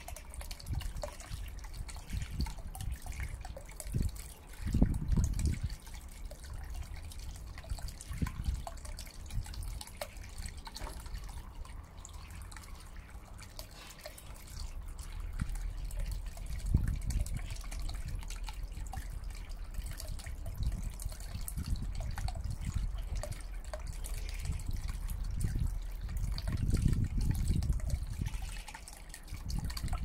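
Small submersible fountain pump jetting water up in a shallow tub, the water splashing and dripping back onto the surface in a steady patter. Low rumbles come and go, loudest about five seconds in and near the end.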